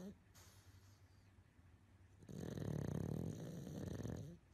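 A sleeping pug snoring: one snore tails off just after the start, then a second, longer snore begins about two seconds in and lasts about two seconds.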